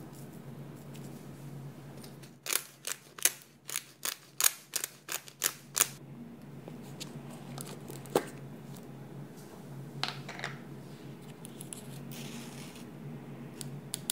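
Plastic salt container being handled and its clear press-on lid taken off. There is a quick run of about a dozen sharp plastic clicks over three or four seconds, then one sharp click about eight seconds in and a couple of softer clicks about two seconds later.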